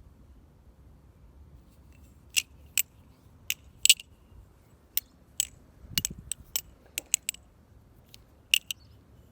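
Glidr Original 4 balisong trainer being flipped: about fifteen sharp, irregular clicks of the handles and latch knocking together, in quick runs, with one duller knock about six seconds in.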